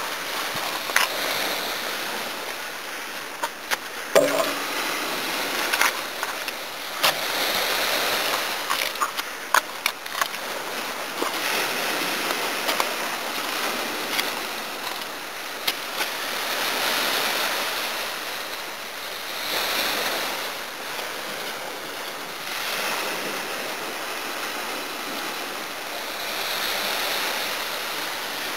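Small waves breaking and washing up the shore, the surf swelling and fading every few seconds. Scattered sharp clicks in the first ten seconds or so.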